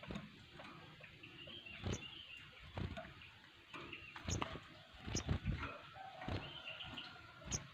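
Several sogon birds calling together in a chorus of short chirps and whistles. Sharp knocks cut in a few times, the loudest cluster about five seconds in.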